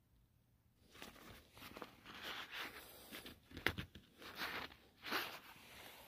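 Nylon and mesh seat fabric of a folding camping chair rustling in several swells as it is handled and worked onto the chair's poles, with one sharp click a little past the middle.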